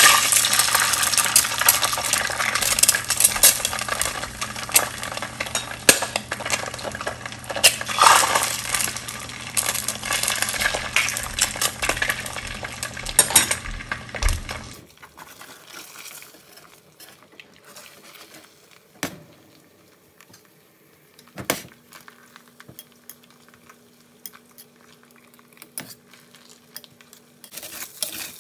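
Eggs frying in hot oil in a stainless steel pan: a loud spitting crackle that starts as the cracked eggs drop in. About halfway through it drops suddenly to a faint background with a few sharp knocks.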